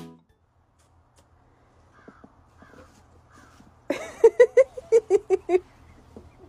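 An animal giving a quick run of about ten short, sharp calls, some six a second, starting about four seconds in.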